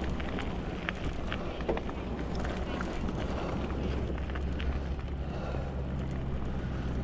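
Fat-tyre e-bike towing a trailer, ridden slowly along a muddy track: a steady low rumble with scattered clicks and snaps, and a steady low hum joining about five seconds in.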